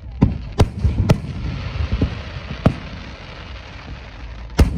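Aerial firework shells bursting with sharp booms: several in quick succession in the first second, another about two and a half seconds in and a loud one near the end, with a crackling hiss between the bangs.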